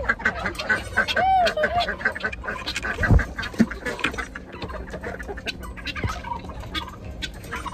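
A flock of backyard chickens clucking and squawking in short calls as they crowd around food being dumped from a bucket, with a dull thump about three seconds in.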